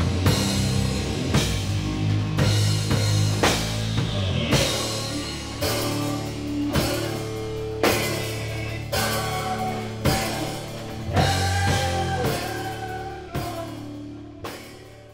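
Slow, heavy doom metal played by a band: fuzzed guitars holding low chords over a drum kit, with a cymbal crash and drum hit about once a second. It fades out over the last few seconds.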